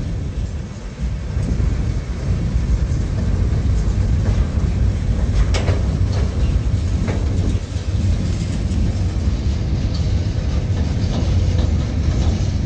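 Boxcars of a CSX manifest freight train rolling past: a steady heavy rumble of steel wheels on rail, with a few sharp clicks from the wheels a little after halfway.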